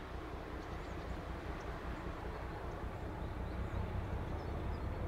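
Distant ČD class 749 'Bardotka' diesel locomotive, its ČKD six-cylinder engine a low steady rumble that grows slowly louder as the train approaches. Faint bird chirps sound now and then above it.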